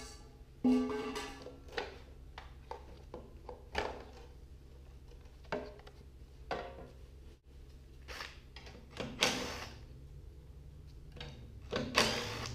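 Scattered light knocks, clicks and clatters of parts and tools being handled on a Briggs & Stratton small engine's covers. A cordless drill/driver gives a short whir near the end.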